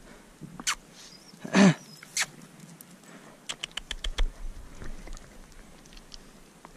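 Footsteps on rocky, stony ground with loose stones clicking and knocking: one louder knock about a second and a half in and a quick run of small clicks near the middle.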